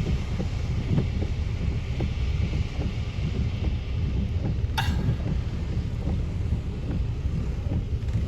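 Wind buffeting the microphone, with storm surf breaking underneath.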